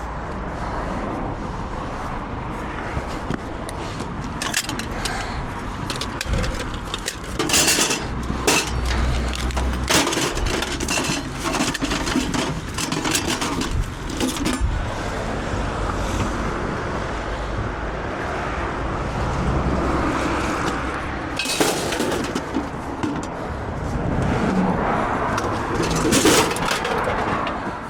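Scrap metal being handled: scattered knocks and metallic clatters, a few of them loud, over a steady low rumble.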